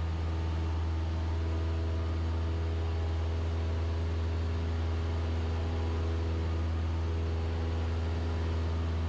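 Cessna 172SP's four-cylinder Lycoming engine and propeller running steadily at takeoff power in the climb-out just after lift-off: a constant deep drone at an unchanging pitch.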